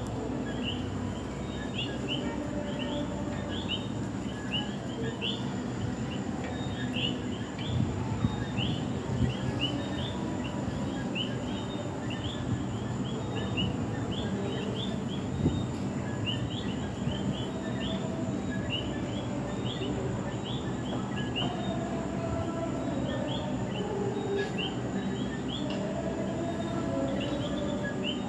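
Common coquí frogs calling at night: short rising chirps repeating over and over, over a steady low background rumble.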